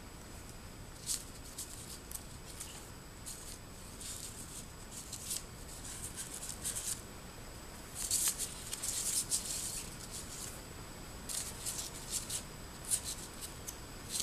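Paper pop-up card rustling and crinkling as it is handled, folded and opened by hand: short irregular bursts, the busiest stretch about eight to ten seconds in.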